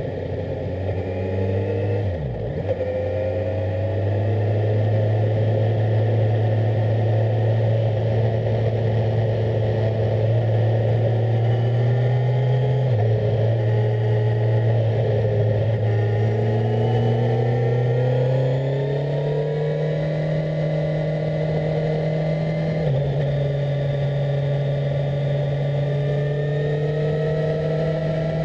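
Onboard sound of a 2018 Kawasaki Z1000SX's inline-four engine under way. Its pitch climbs steadily as the bike picks up speed and drops sharply at an upshift about halfway through, then climbs again and drops at a second upshift later on.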